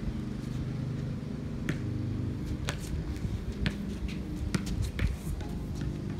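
Basketball dribbled on a concrete driveway: a series of sharp, irregular smacks about a second apart, over a steady low hum.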